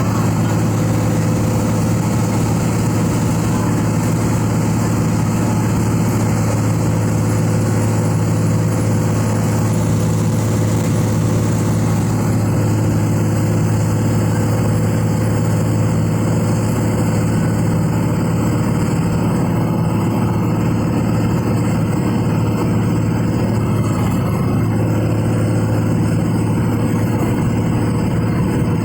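Diesel engine of a Volkswagen 17.210 EOD Euro III bus chassis idling steadily at an unchanging pitch.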